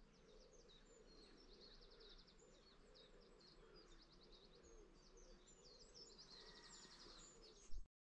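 Faint dawn chorus of small songbirds: many high chirps and quick trills. There is a brief knock near the end.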